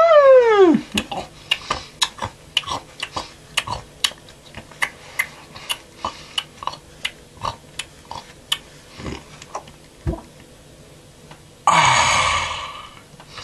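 A short falling squeal at the start, then a long run of sharp clicks, about two or three a second. Near the end comes a loud hiss of noise lasting about a second and a half that fades out.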